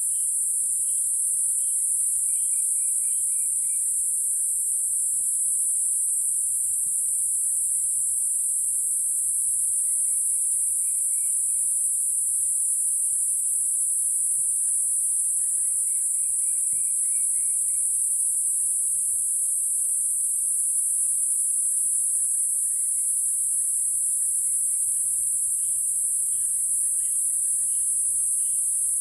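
Loud, steady, high-pitched shrilling of insects in the trees, unbroken throughout. Faint bird chirps and trills sound underneath.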